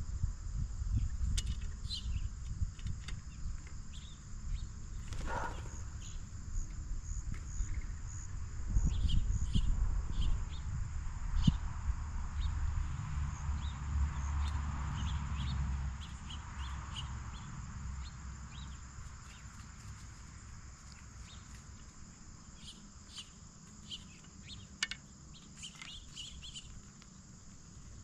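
Crickets trilling steadily, with scattered short bird chirps. A low rumble, the loudest sound, runs through the first half and fades out about halfway through.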